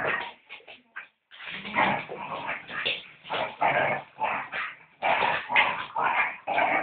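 A small dog yipping and whining in excited play, a quick irregular string of short calls.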